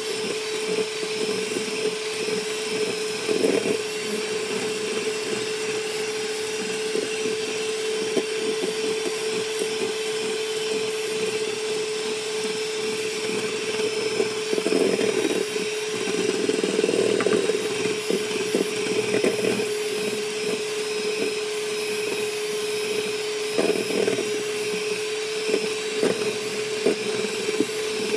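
Kenwood electric hand mixer running steadily with a constant hum, its beaters whipping egg whites in a stainless steel bowl as sugar is added gradually for a meringue. A few brief louder rattles come and go, about 3 s in, around the middle and near the end.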